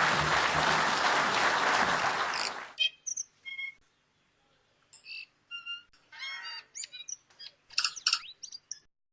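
Audience applause that cuts off about two and a half seconds in, followed by a bird singing: a run of short chirps, whistles and gliding notes in separate phrases, with a denser burst of calls near the end.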